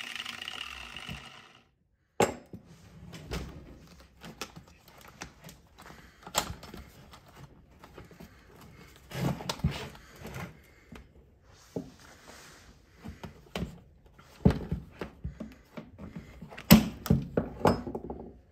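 A power tool running, then cutting off about a second and a half in. After that come irregular knocks and thunks of hard plastic ski boot shells being handled and set down on a workbench, the loudest near the end.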